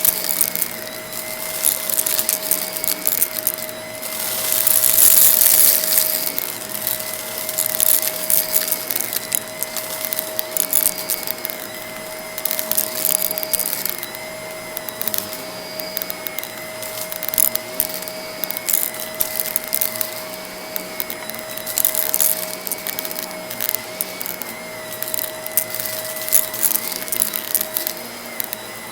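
Vacuum cleaner running steadily with a constant motor whine, and many sharp crackles and clicks of crunchy debris being sucked up from a rug, with a louder hissing surge about five seconds in.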